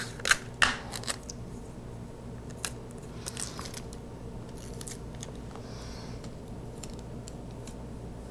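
Pennies wrapped in clear adhesive tape being handled: a few sharp clicks and crinkles in the first second, then faint rustling and light ticks as the tape is worked around the coin stack.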